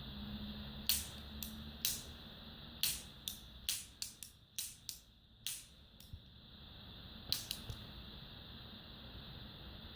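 Ganzo Firebird folding knife being handled, giving a run of about fifteen sharp, irregular clicks, bunched together in the middle and a couple near the end, over a steady hiss.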